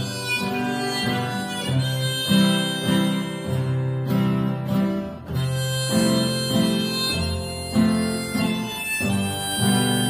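Acoustic guitar playing an instrumental interlude of a Korean folk-pop song, with held melody notes carried over the guitar.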